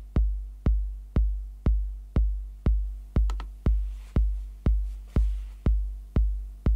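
Electronic kick drum from a Native Instruments Maschine+, sequenced on every beat of a one-bar pattern: a steady four-on-the-floor pulse of about two hits a second, each a short click followed by a long deep boom.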